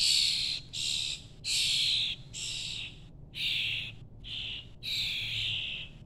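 Baby birds fallen from the nest giving loud, raspy begging calls, one after another with short gaps, about seven in a row, as they are hand-fed.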